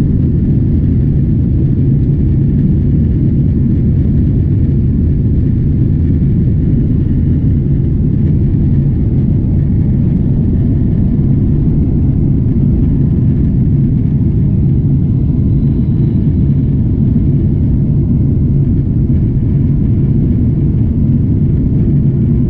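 A Boeing 777-300ER's GE90 engines at takeoff thrust and the rumble of the wheels on the runway, heard inside the cabin as a loud, steady, low rumble through the takeoff roll and liftoff.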